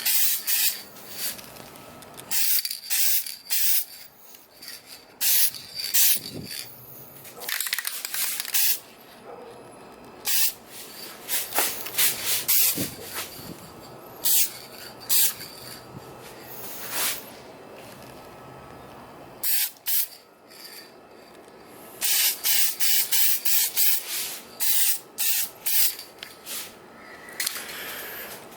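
Aerosol can of Dupli-Color trim and bumper paint spraying in many short hissing bursts, in clusters with pauses between, as a coat of paint goes onto plastic trim.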